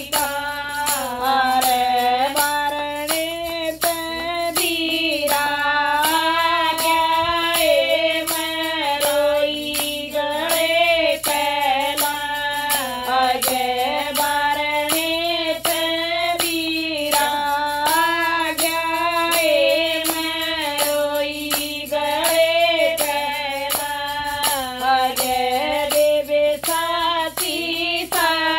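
A woman singing a Haryanvi folk bhajan over a steady percussive beat.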